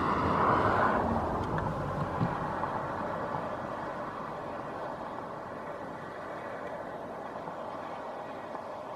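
A vehicle's steady running noise, loudest in the first second and then fading gradually.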